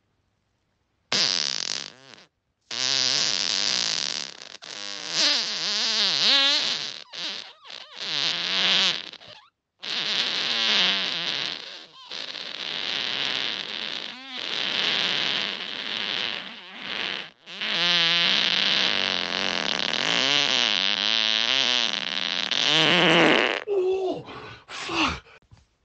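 Human farts, a string of long, rasping ones in quick succession with short breaks between them, wavering up and down in pitch, ending in a few shorter bursts.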